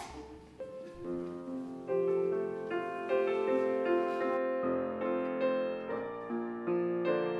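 Electric keyboard with a piano sound playing the slow introduction to a congregational song: single notes at first, filling out into sustained chords about two seconds in. A single knock sounds at the very start.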